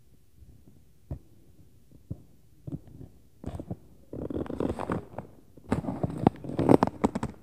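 Noise from the apartment upstairs, heard through the ceiling: a few single thumps in the first three seconds, then two longer stretches of rough, rapid noise in the second half, the second one the loudest.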